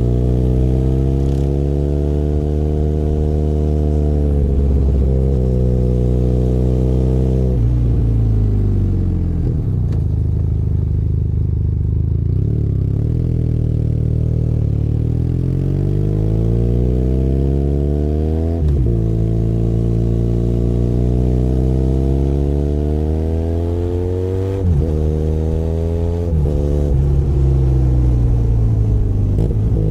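Benelli Leoncino 500 Trail's parallel-twin engine under way, its pitch climbing as it accelerates and dropping sharply at each gear change, several times, then falling away near the end as it slows.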